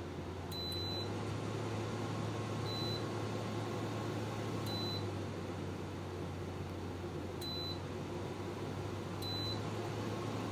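Midea window air conditioner running with a steady low hum that gets a little louder about a second in. Five short, high beeps come a second or two apart, the unit acknowledging button presses as its settings are changed.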